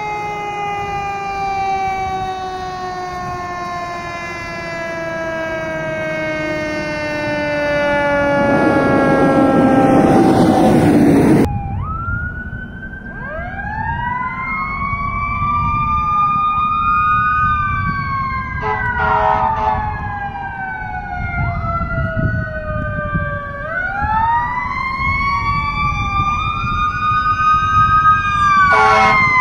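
Fire engine siren winding down in a long, slow falling wail, with the noise of the truck passing close and loud just before it stops short. Then a fire engine siren rises and falls in repeated sweeps, overlapping at times, with two short blasts of the air horn, one near the middle and one near the end.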